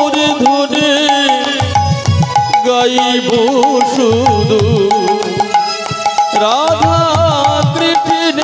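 Instrumental devotional kirtan music without singing: a harmonium playing a wavering melody, over steady hand-drum beats and cymbal strikes.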